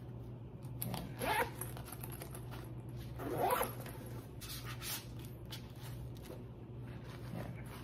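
Zippers on a fabric tactical belt bag being pulled open while its pockets and holster compartment are handled. Two longer zips about one second and three and a half seconds in, then lighter fabric rustles and small clicks, over a steady low hum.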